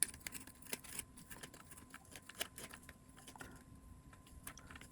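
Faint, irregular small clicks and ticks of bolts being tightened by hand into the robot's plastic plate standoffs.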